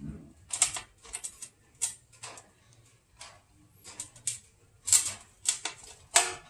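Cat licking and chewing food from a plate: irregular sharp wet clicks and smacks, several louder ones near the end.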